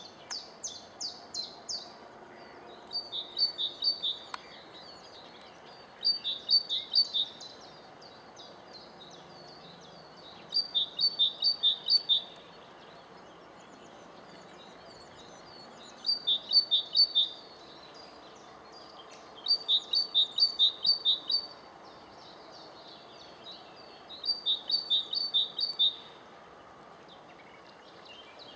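A small songbird singing: short phrases of quick, evenly spaced high notes, each lasting one to two seconds, repeated about seven times with pauses of a few seconds between them.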